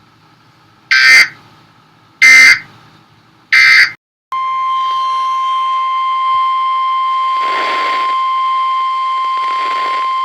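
Emergency alert signal from a NOAA Weather Radio broadcast. Three short bursts of SAME digital header data sound about a second apart. About four seconds in, the steady single-pitch 1050 Hz warning alarm tone starts, with faint radio hiss swelling twice beneath it.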